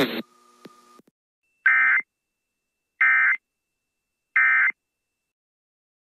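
Three short, identical bursts of Emergency Alert System SAME data tone, each under half a second and about a second and a half apart. They are the end-of-message signal that closes an EAS alert.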